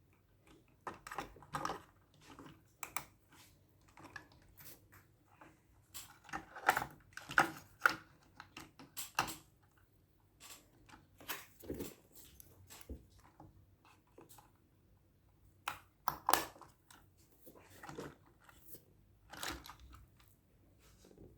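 Irregular clicks, taps and rustles of hands handling the packaging and plastic parts of an RC car being unboxed, in a small room.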